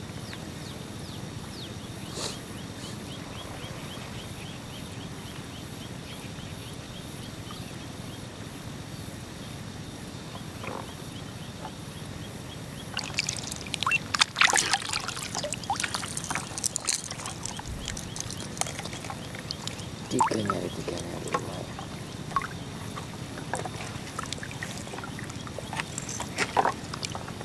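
Water splashing and sloshing at the surface in irregular bursts, first about halfway through and again twice near the end, over a steady low hiss.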